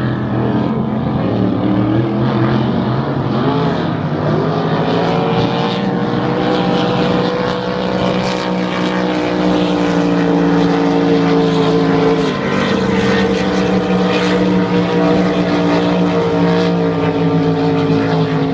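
Supercharged methanol V8 race boats running at speed across the water, a loud, steady engine drone. The pitch climbs about four seconds in and dips briefly about twelve seconds in.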